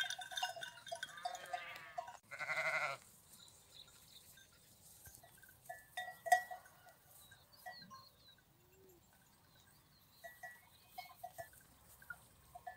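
A sheep bleats once, a loud call lasting just under a second about two seconds in, over scattered clinking of the flock's bells, heaviest in the first two seconds and again around six and eleven seconds in.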